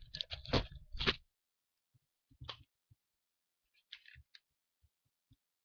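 Paper being handled and folded: a quick run of crackles and clicks in the first second, then a few faint scattered rustles and ticks.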